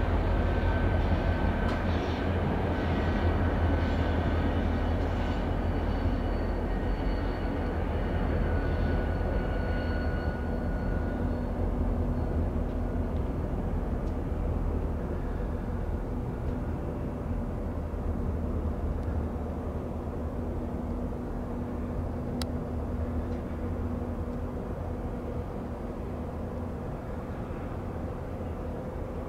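Union Pacific diesel locomotives hauling a freight train past, with a steady low engine rumble. Faint high steady tones ring over it for the first ten seconds or so, then fade.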